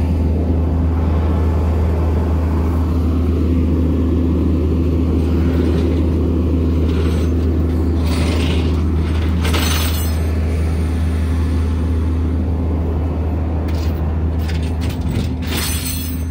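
A vehicle engine idling steadily with a low, even hum. Brief rustles of clothing rubbing on the phone's microphone come a little after the middle and again near the end.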